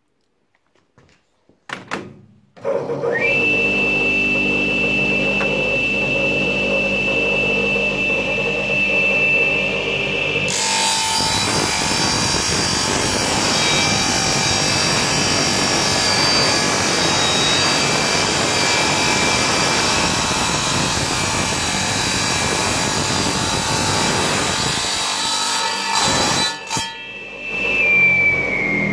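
Wet tile saw with a diamond blade: a few handling clicks, then the motor starts and runs free with a steady high whine and hum. About ten seconds in, the blade starts cutting through a plastic-and-metal cassette walkman with a harsh, dense noise that goes on for about fifteen seconds, dipping briefly near the end.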